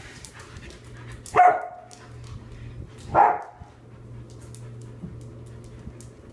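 Samoyed barking twice, two short barks a little under two seconds apart.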